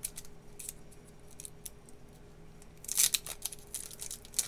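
Paper trading card pack wrapper being peeled and torn open by hand: scattered small rustles and crisp snips, then a louder crinkling rip about three seconds in.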